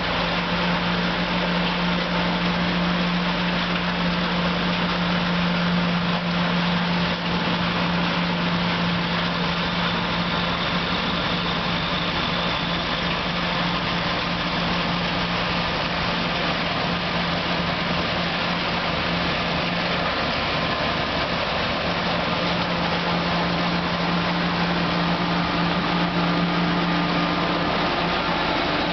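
Snow-removal machinery, a large snowblower loading snow into a dump truck, running steadily with its heavy engines: a constant deep drone with a strong hum and a dense rushing noise over it.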